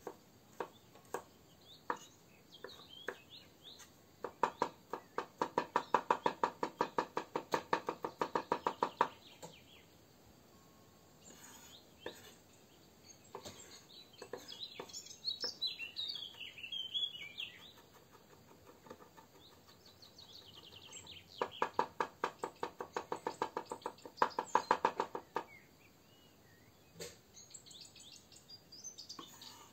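A knife chopping quickly on a cutting board in two runs of steady, rapid strokes, about five a second, with a few single taps before them. Birds chirp in between.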